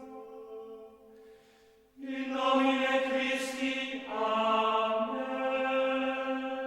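Background music of held, chant-like notes, like a choir or drone. It fades out about a second in, stops briefly, and comes back with a change of note about four seconds in.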